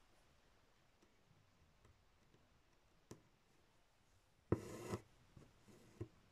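Embroidery thread being drawn through cloth stretched in a hoop: one short, loud rub about two-thirds of the way in, with a faint click before it and a few soft taps and a click after it.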